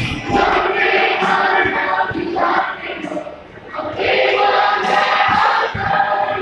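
Mixed school choir of boys and girls singing together, in two phrases with a short breath pause a little past halfway.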